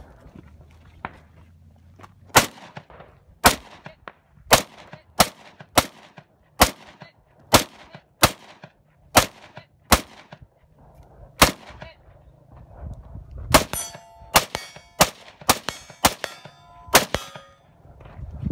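Kalashnikov rifle fired in single shots, about a dozen at roughly one a second. Near the end a quicker string of shots follows, each trailed by the ringing of struck steel targets.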